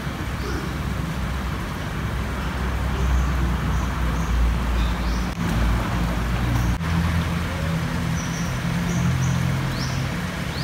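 Outdoor background noise: a steady low rumble with a few short high chirps, briefly breaking off twice around the middle.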